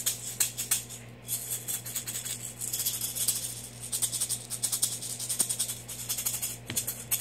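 A small handheld maraca shaken by hand in quick, uneven rattling strokes, pausing briefly about a second in and then carrying on.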